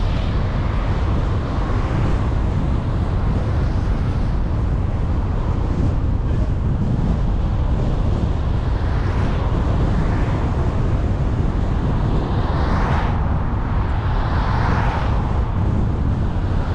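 A car driving at town speed: a steady low rumble of tyres and road noise, with a few swells as other vehicles pass, the loudest a little over halfway through.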